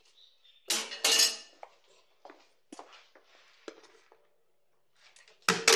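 Household objects clattering as they are handled at a washing area: a loud rattle of knocks about a second in, scattered small clicks and taps, then another loud clatter near the end.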